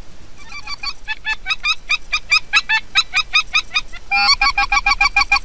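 Geese honking in a rapid, regular run of high calls, several a second, starting about half a second in. About four seconds in it switches abruptly to a louder, denser run of honks.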